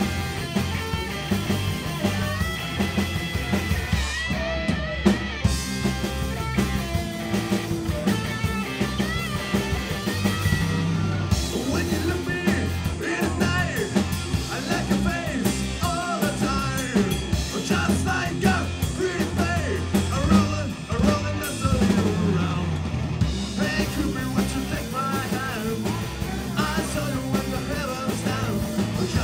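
Rock band playing with drum kit and guitar, the low end pulsing steadily under a lead line that bends up and down in pitch, busiest through the middle.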